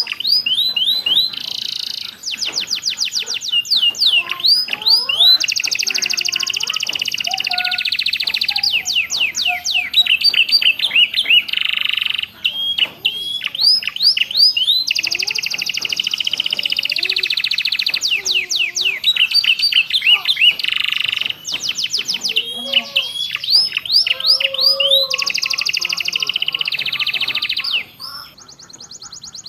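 Domestic canary singing a long, nearly unbroken song of fast trills and buzzy rolls, with imitated calls of ciblek (bar-winged prinia) and prenjak worked into it. The song breaks off briefly a few times.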